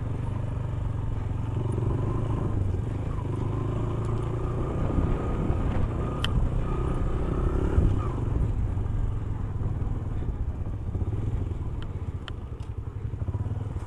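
Motorcycle engine running at low, steady revs while the bike rolls over loose rocks and gravel. A couple of sharp clicks come through, about six and twelve seconds in.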